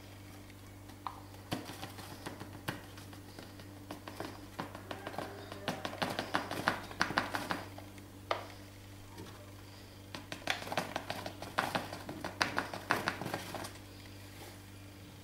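A flour packet rustling and crackling as it is tipped and shaken over a ceramic mug to pour flour in, in two bursts, with a few light clicks and knocks against the mug.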